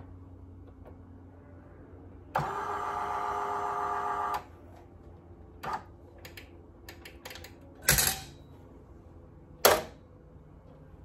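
Electric French fry cutter's motor running for about two seconds with a steady whine. Then come a few light clicks and two loud knocks as the cutter is worked and a potato is pushed through its stainless steel blade grid.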